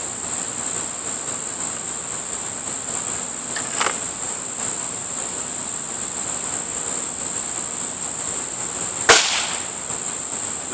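A steady high drone of insects, with one sharp crack about nine seconds in: a shot from a Beeman RS2 break-barrel spring-piston air rifle in .22. A fainter click comes about four seconds in.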